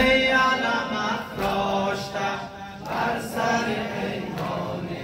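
A group of men chanting a Persian nawha, a Muharram mourning lament, together, with regular thuds of chest-beating about every second and a half.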